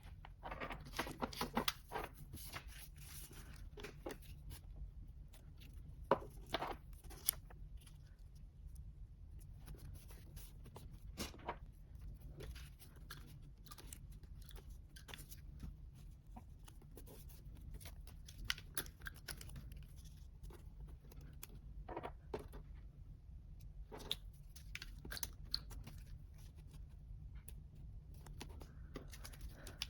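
Paper and stickers being handled for a journal collage: rustling and tearing, with scattered sharp taps and clicks. A steady low hum sits underneath.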